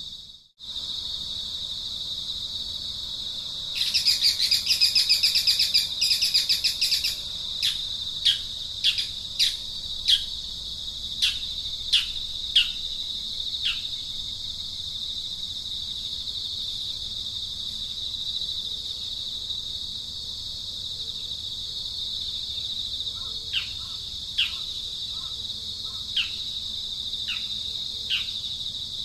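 Steady high-pitched insect drone, with birds calling over it: a loud burst of rapid chattering about four seconds in lasting some three seconds, then a run of short, sharp descending chirps that thins out, with a few more near the end.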